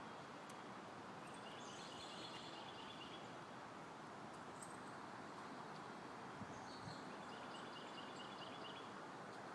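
A songbird singing twice, each time a phrase of about two seconds made of a quick run of repeated high notes, over a steady rush of wind.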